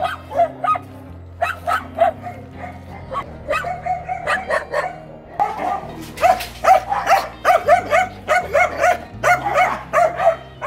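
Several dogs in shelter kennels barking over and over, the barks coming thick and fast from about halfway through.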